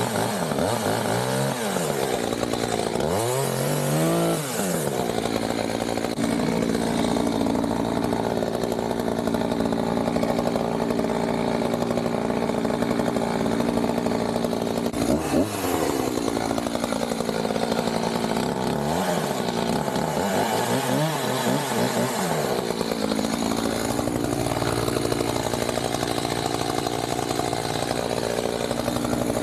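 Gas chainsaw cutting pecan wood, mostly held at high revs, dropping toward idle and revving back up several times.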